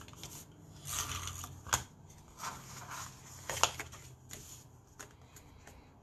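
Cardstock being handled and slid over a wooden desk, with irregular rustling and a couple of sharp clicks.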